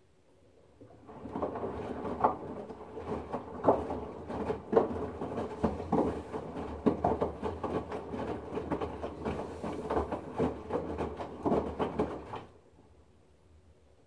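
LG front-loading washing machine drum turning through a wash stroke in deep water: the water sloshes and splashes and the wet load drops and slaps inside the drum. It starts about a second in and stops shortly before the end, with the drum at rest on either side.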